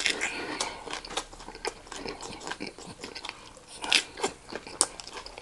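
Close-up eating sounds: a bite into a lettuce wrap, then chewing with irregular crisp crunches and wet mouth clicks, a few louder crunches about four seconds in.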